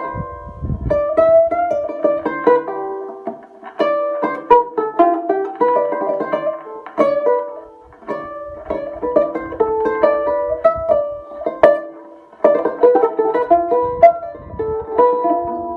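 Handmade African-style plucked instrument being played to test its sound: a steady stream of bright plucked notes picking out a melody, often two or three pitches at once, each ringing briefly. A few low thuds come in near the start and again later on.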